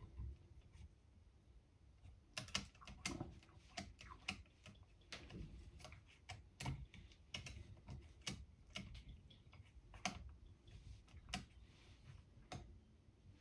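Irregular small clicks and taps of the Air Arms TX200 air rifle's metal parts being handled, sparse at first and coming thick and fast from about two seconds in.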